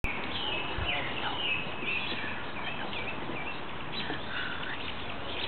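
Several young puppies whining and squeaking as they play, a steady run of short high-pitched cries that rise and fall and overlap one another.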